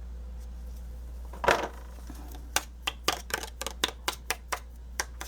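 A hard knock, then a quick run of about a dozen light, sharp taps, typical of a paper tag being tapped against a plastic tray to shake off excess embossing powder.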